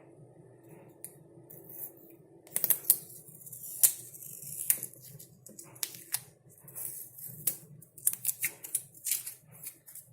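Fingers picking and scratching at a sticker, peeling it off a plastic dishwasher-cleaner bottle: an irregular run of sharp clicks and short scratchy rasps, starting about two seconds in.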